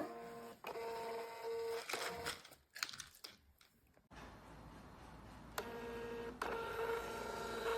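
ORGBRO Z3 thermal label printer's feed motor whining at one steady pitch while it prints and feeds labels. It runs in short stretches: once about a second in, then again for the last couple of seconds with a brief break.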